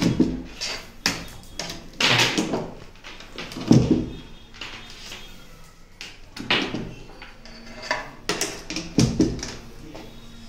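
Banana-plug test leads being handled and pushed into terminal sockets on a bench instrument board: irregular clicks, knocks and rattles, several with a low thump.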